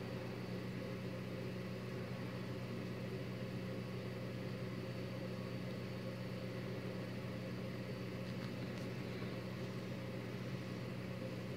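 Steady low hum with an even hiss, unchanging throughout: background appliance or electrical noise. The crochet hook drawing yarn through the stitches is too soft to stand out.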